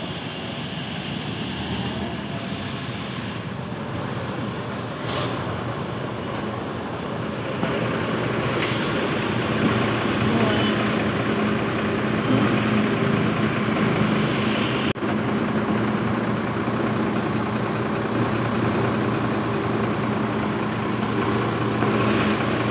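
Large bus's diesel engine running close by, a steady drone that grows louder about seven or eight seconds in.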